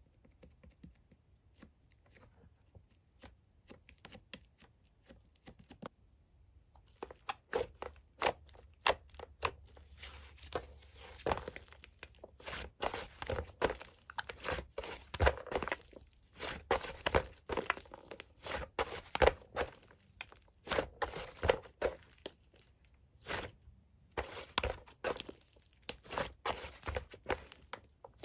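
Hands squishing, stretching and pressing a mint chocolate slime, giving rapid crackling clicks and pops with tearing sounds as it pulls apart. The clicks are sparse and faint at first and grow dense and louder about seven seconds in.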